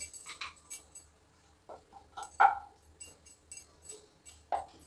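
Whole spices (bay leaves, cardamom, cinnamon, peppercorns) sizzling in hot oil in a nonstick pan, with scattered small crackles and pops. A few short, louder sounds stand out, the loudest about halfway through and another near the end.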